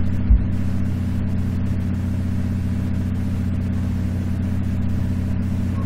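Steady low background hum, with a single soft low thump about a third of a second in.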